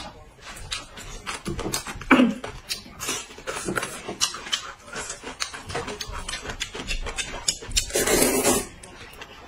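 Close-up eating sounds from hot and sour sweet-potato noodles: wet chewing and clicking mouth noises, a short vocal sound about two seconds in, and a long slurp of noodles about eight seconds in.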